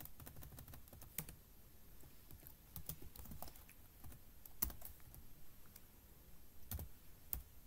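Typing on a computer keyboard: faint, irregular keystrokes, with a few sharper key clicks scattered among them.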